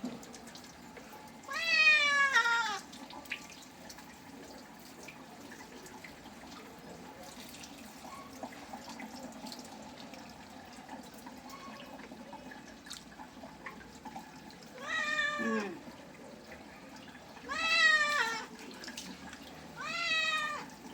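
Domestic cat meowing four times during its bath, each call falling in pitch. The first comes a couple of seconds in, then a long pause before three more near the end.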